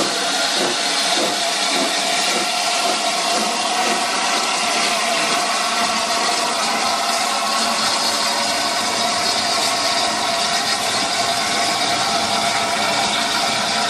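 Steady hiss of steam blowing off from the safety valves of LNER Peppercorn A1 Pacific steam locomotive 60163 Tornado as it moves slowly past.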